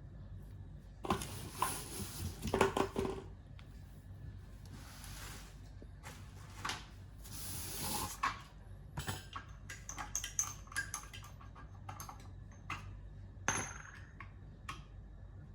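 Metal parts of a meat slicer being handled: two brief scraping rushes in the first half, then a run of small clicks and clinks.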